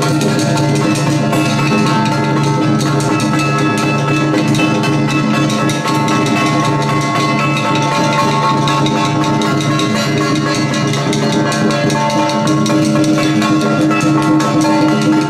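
Music with steady, fast drumming and percussion under held melody notes.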